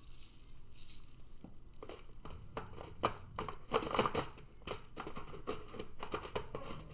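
Plastic parts of an evaporative humidifier being handled and fitted together: rustling and crinkling with many small clicks and knocks.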